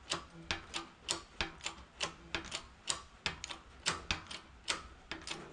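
Hydraulic shop press being pumped while pressing a bearing race out of a steering bell crank: a quick, even ticking of about four clicks a second.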